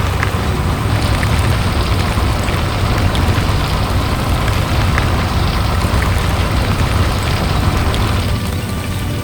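Sound effect of a heavy construction machine running steadily, a low rumble under a dense rattling hiss that eases off about eight seconds in.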